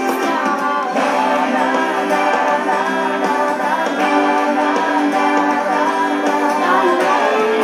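Karaoke backing track playing: sustained instrumental chords with guitar, and a singing voice comes in briefly near the end.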